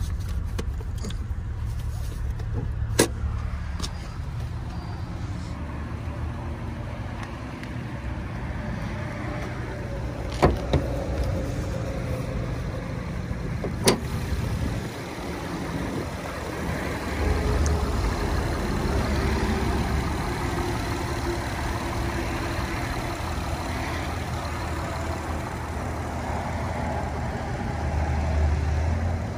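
Hood latch of a 2010 Acura MDX being opened. There is a sharp clunk about three seconds in as the release lever under the dash is pulled, then two more sharp clicks around ten and fourteen seconds in at the front latch as the hood is raised. Under it all runs a steady low rumble.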